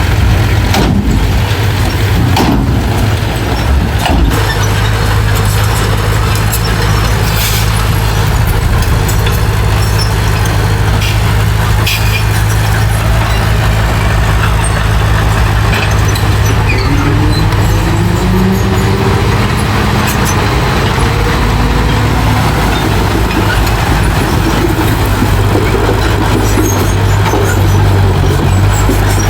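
Heavy diesel engine of earthmoving machinery running steadily, with a few sharp clanks in the first dozen seconds and some brief rising whines past the middle.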